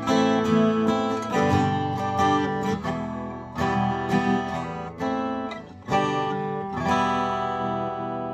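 Gibson J-35 '30s Faded acoustic guitar strummed with a pick, a run of chords with a full sound that really projects. The last chord rings out and fades near the end.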